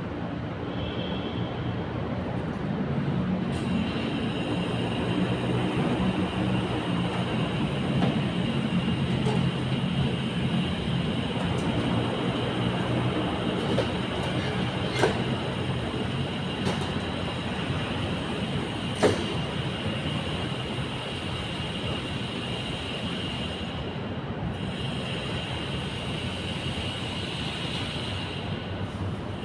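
A steady mechanical drone with a hiss over it, and a few sharp knocks as metal-edged road cases are loaded into the back of a van, the loudest about fifteen and nineteen seconds in.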